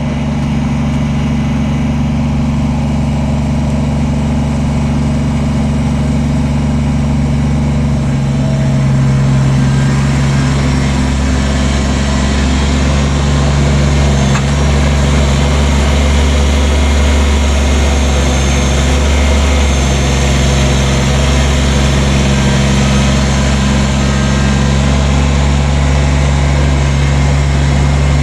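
Tractor engine running steadily, a little louder from about eight seconds in.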